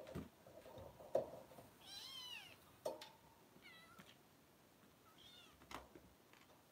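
Kitten mewing softly: three short high-pitched mews, each falling in pitch, the first and longest about two seconds in, with a few faint clicks from the litter moving in the bedding.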